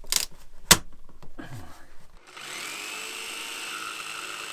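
Two sharp knocks, then about two seconds in a small electric power tool starts up. Its whine rises briefly as it spins up, then it runs steadily.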